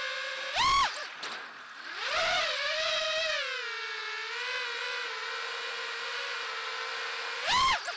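Racing quadcopter's four Emax RS2205 2300KV brushless motors spinning 5-inch three-blade props, heard on board: a steady high whine that swoops sharply up in pitch and loudness and back down as the throttle is punched, once about a second in and again near the end, with a slower swell in pitch between two and three seconds in.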